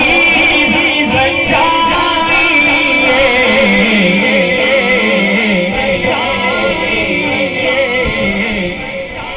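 A man singing a verse of devotional poetry into a microphone, in long wavering, ornamented lines that trail off near the end.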